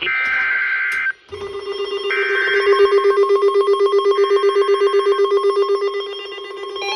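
NOAA Weather Radio SAME alert header: three data-tone bursts, each about a second long and two seconds apart. Weather radios start sounding their alert alarms after the first burst, a fast-pulsing buzzing beep with more radio alarms joining near the end. This marks the start of a new severe thunderstorm warning.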